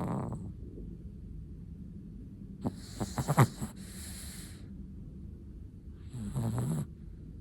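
Chihuahua snoring in its sleep: a snore about three seconds in with a few short catches, then a breathy hiss, and a shorter snore near the end.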